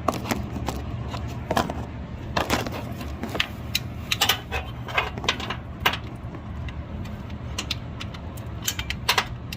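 Hand socket ratchet clicking and metal tools clinking in irregular strokes as a belt tensioner mounting bolt is worked loose by hand.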